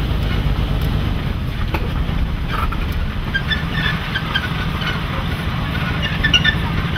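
Steady low engine and road rumble of a vehicle, heard from inside the cab as it drives. Scattered short high chirps come in from about three seconds in.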